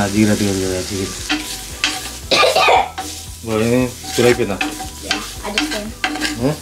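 Cactus pieces frying in a pan and being stirred with a spoon: a steady sizzle with repeated scraping against the pan. The cactus is at the stage where its sticky gum is cooking off.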